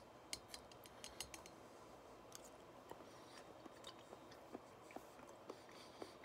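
Quiet, irregular wet clicks and smacks of a mouth chewing a pickled mushroom, with one sharp click right at the start.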